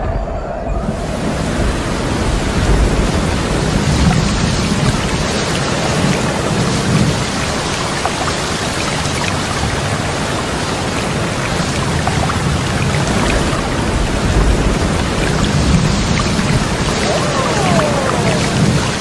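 Steady rain with low rumbles of thunder, setting in about a second in.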